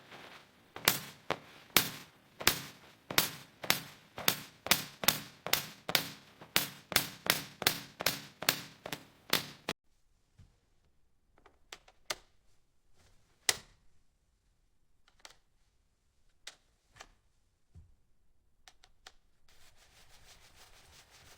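A rapid series of sharp clacks, about two a second and quickening to nearly three, stopping suddenly about ten seconds in; after that only a few scattered clicks over faint hiss.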